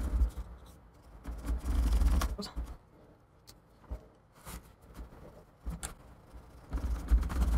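A plastic adhesive-cutting wheel is pushed and rolled along the edge of an iMac's glass display panel, making a rough scraping rumble in spells, with scratchy clicks between them. The wheel is being forced against stiff, old adhesive that resists the cut.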